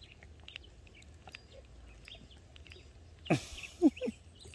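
Faint bird chirps, then a little over three seconds in a sudden swish with a steeply falling voice sound, followed by two short grunt-like sounds from a man's voice.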